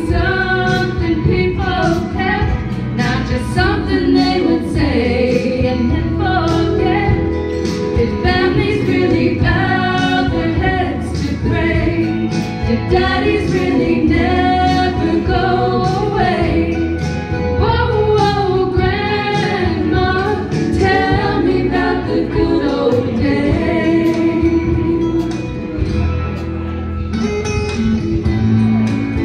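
Two women singing a slow country ballad together over a live backing band; near the end the voices drop out and the band plays on.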